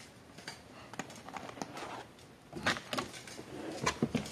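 Irregular light clicks and taps, with a few louder knocks in the second half.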